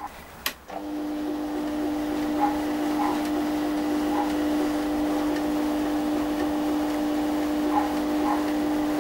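Güde GMD 400 mini metal lathe running at steady speed with a continuous motor whine, on a power-fed threading pass with the carriage driven along the bed. The sound drops out briefly near the start, then runs steadily with a few faint ticks.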